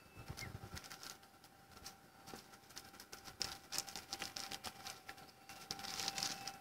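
Light scattered clicks and rustles of a person getting up and moving about on a dry, litter-strewn bank while handling something in the hands, busiest in the middle and with a brief rustle near the end. A faint steady high tone runs behind.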